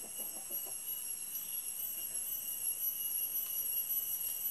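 Steady, high-pitched insect chorus: several shrill tones held at once without a break.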